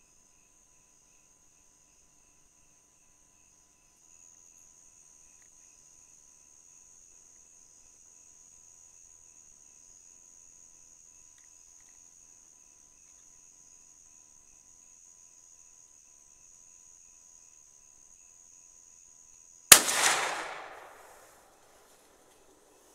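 Night insects trilling and chirping steadily, faintly; near the end a single rifle shot cracks and its echo rolls away over about a second and a half.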